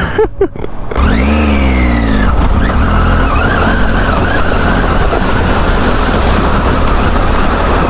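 Triumph Tiger 800's three-cylinder engine running as the motorcycle rides through a shallow rocky stream, its tyres splashing through the water. About a second in the engine note rises and falls once.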